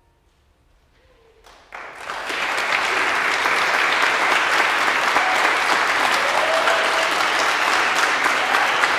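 A brief hush, then audience applause breaks out about a second and a half in and goes on as steady clapping.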